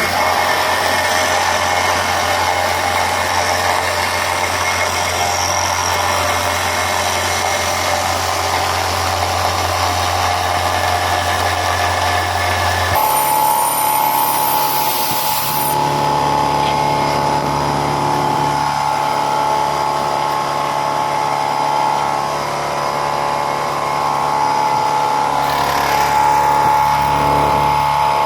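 Pratt & Whitney Tapemate C CNC mill running a program on an aluminium part, a steady machine hum with spindle and servo tones. About halfway through the hum steps up to a higher pitch, with a brief hiss lasting a couple of seconds.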